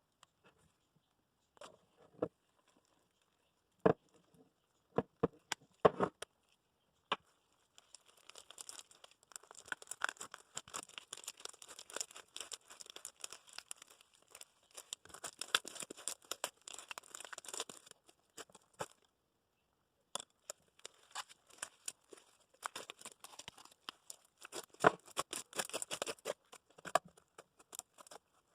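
Clear-glue slime with shaving cream and lotion being stirred as activator is mixed in: sticky crackling, popping and tearing. A few sharp clicks come first, then dense crackle in two long stretches with a short break in the middle.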